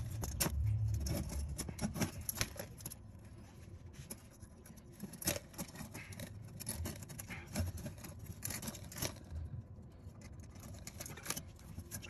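Coiled resistance wire of an electric furnace heat strip clinking and scraping against its metal frame and ceramic insulators as it is threaded by hand: a string of small, irregular metallic clicks and jingles.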